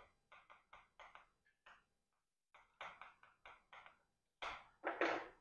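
Chalk writing on a chalkboard: a series of short, faint scratching strokes, several a second. The longest and loudest stroke comes near the end.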